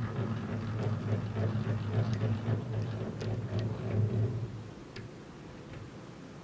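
Hand-cranked honey extractor spinning: a low steady hum that pulses with the turning, with light metallic ticks and rattles from the gear and basket. It dies away about five seconds in.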